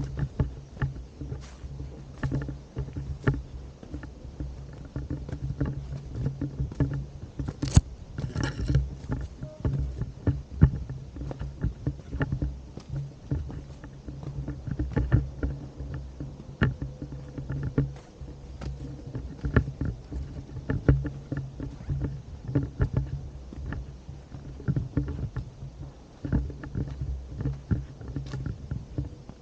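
Handheld-camera handling noise while walking: a steady low rumble with many irregular knocks and clicks, likely footsteps on a path and the grip shifting on the camera.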